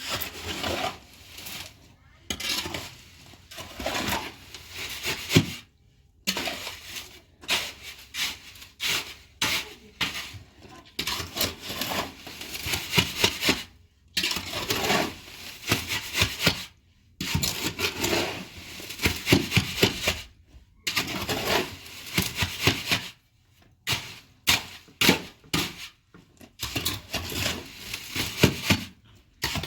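Irregular bursts of scraping and rubbing with occasional knocks, broken by short pauses.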